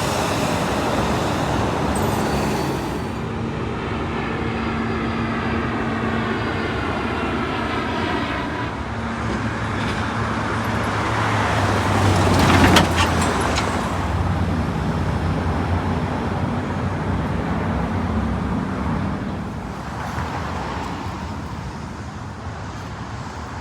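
Road traffic: the steady sound of cars going by, with one vehicle passing close and loudest about halfway through.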